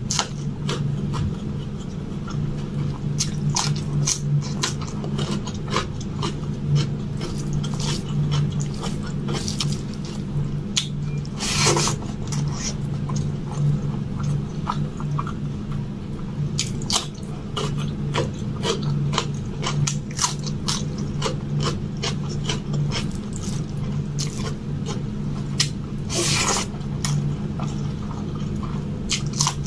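Close-miked eating by hand: wet chewing and lip smacks of rice and spinach curry, a steady stream of short clicks, with two longer, louder noisy sounds about twelve and twenty-six seconds in. A steady low hum runs underneath.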